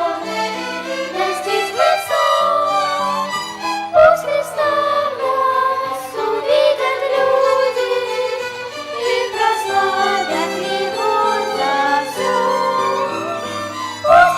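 Church choir singing a hymn, accompanied by a violin ensemble playing sustained bowed notes.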